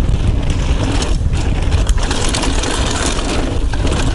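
Wind buffeting a chest-mounted action camera's microphone over the sound of mountain bike tyres rolling fast on a dirt trail, heaviest in the low end. There is one sharp knock about two seconds in.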